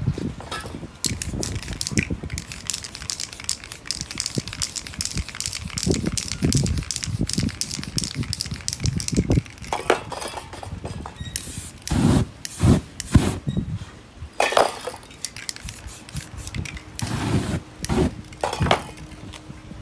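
Aerosol spray paint cans hissing in short bursts, mixed with crackling and crinkling of paper being handled and peeled off the painting. Near the end, a loud hissing burst as the wet spray paint is set alight.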